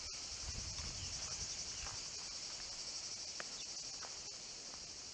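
A steady, high-pitched chorus of cicadas shrilling with a fast, even pulse.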